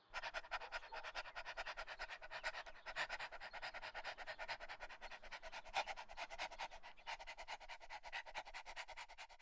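A dog panting fast and evenly, about six short breaths a second, cutting off suddenly.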